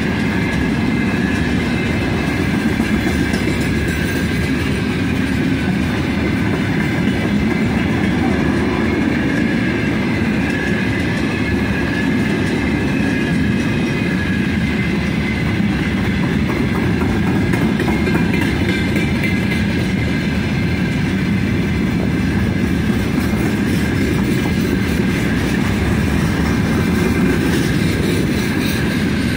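Wagons of a long, 87-car freight train rolling past on the rails, a steady, unbroken rumble of wheels on track.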